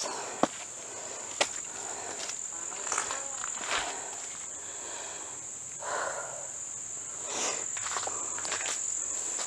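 Steady high-pitched drone of insects in the woods, with a few sharp footsteps and scuffs from someone climbing steps on the trail.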